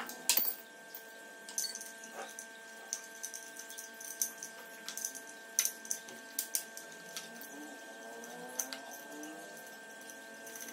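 Light metallic clicks and taps from hand tools working on a motorcycle battery's terminal bolts, coming at irregular intervals, over a faint steady hum.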